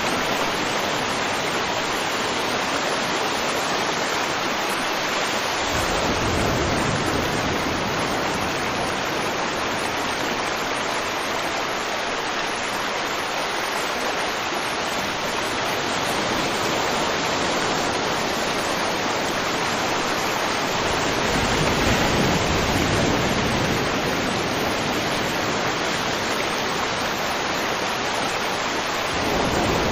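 River water flowing and rushing steadily, with deeper surges swelling in about three times.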